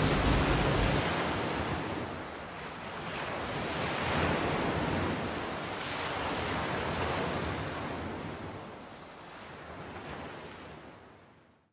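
Waves washing with some wind, a steady rush that rises and falls in slow swells, with a low wind rumble at the start. It fades out to silence just before the end.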